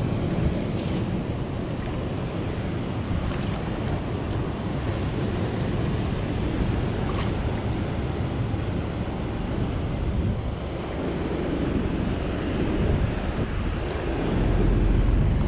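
Sea waves washing around a small boat with wind buffeting the microphone, a steady rushing noise that swells into a stronger low rumble of wind near the end.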